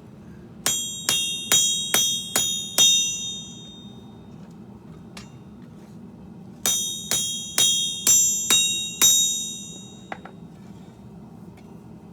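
Hammer blows on steel over an anvil in two runs of six strikes, about two a second, each blow leaving a bright metallic ring.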